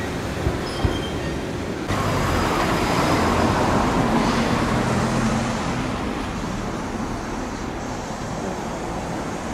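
Road traffic at a city street intersection. About two seconds in, the noise jumps louder as a car passes close by with tyre and engine noise, then it eases back to a steady traffic hum.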